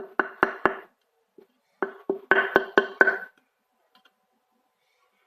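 Table tennis blade being struck in quick, even knocks, about four a second, each with a short hollow ring. There are two runs, the second starting a little under two seconds in.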